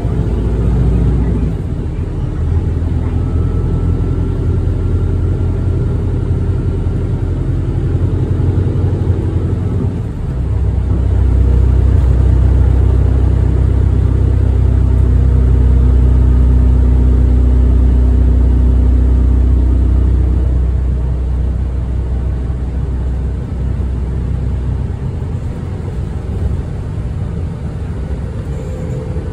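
City bus engine and drivetrain running, heard from inside the bus, with a steady low hum. It grows louder about ten seconds in, as under acceleration, and eases off again around twenty seconds in.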